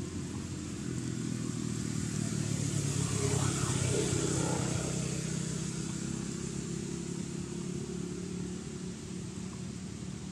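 Motor vehicle engine humming steadily, growing louder to a peak about four seconds in and then fading, as a vehicle passes by.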